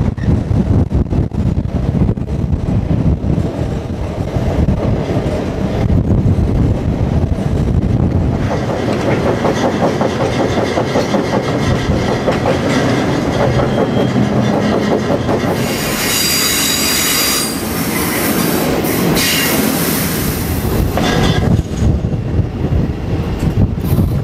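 Freight train rolling on the rails: a steady heavy rumble and clatter of wheels and cars, with a high metallic wheel squeal from about 16 s in that stops about 5 s later.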